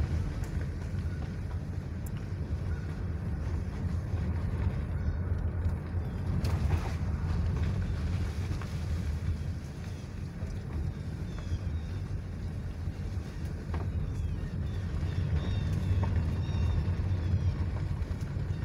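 Car cabin noise while driving on a dirt-and-gravel road: a steady low rumble of tyres and engine heard from inside the car.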